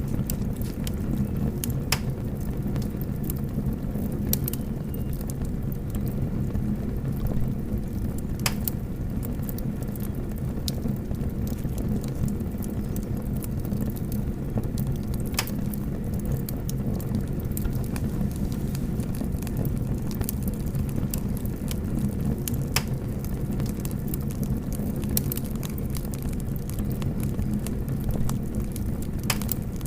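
Flames burning through a miniature house: a steady low rumble with scattered sharp crackles and pops.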